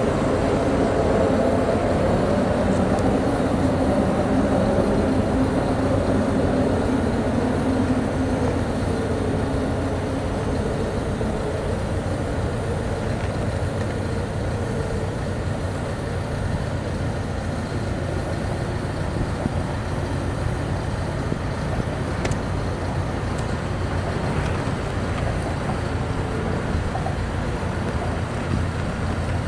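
Traffic crossing the Mackinac Bridge overhead, tyres humming on the bridge's open steel grating in a steady drone. The hum is strongest for the first several seconds, then eases slightly.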